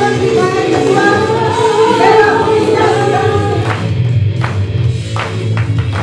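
Music with singing over a steady bass beat. A little past halfway the singing stops and sharp percussive hits carry on over the bass.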